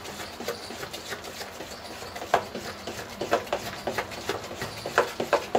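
Hand beating coarse-ground soaked moong dal batter in a steel bowl, giving irregular wet slaps and squelches a few times a second, some louder than others. The batter is being whipped in one direction to beat air into it.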